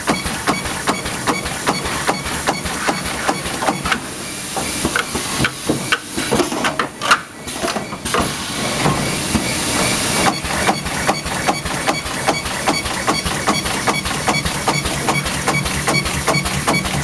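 Radiator circumferential seam welding machine running, with a rapid, regular ticking all through and a hiss that swells from about four seconds in and stops about ten seconds in.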